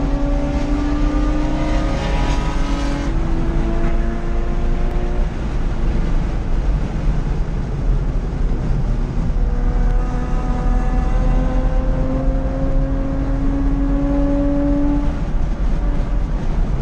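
Porsche 911 Carrera 2 (997) flat-six engine at speed, heard inside the cabin: pitch rising under full throttle with an upshift about three seconds in, easing off around five seconds as the car brakes, then climbing again and dropping near fifteen seconds. Steady road and wind rumble underneath.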